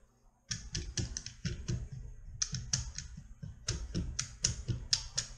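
Mallet tapping the camshaft bearing caps on a Mazda Miata cylinder head to knock them loose for camshaft removal. Quick, light, sharp taps in runs of several a second, starting about half a second in, with short pauses between runs.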